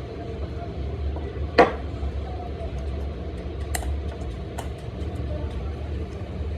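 Workshop work sounds: a single sharp knock about a second and a half in, and a few lighter clicks, over a steady low hum.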